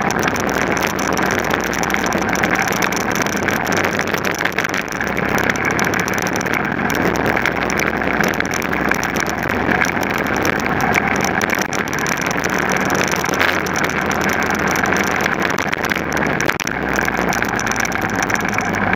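Onboard sound of a small racing car at speed on a circuit: its engine running under load with steady wind and road noise on the camera's microphone.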